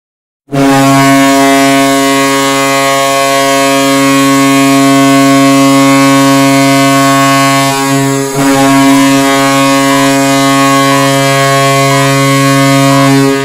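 NHL arena goal horn sounding: one deep, steady horn blast starting about half a second in, breaking off briefly about eight seconds in and then sounding again until near the end.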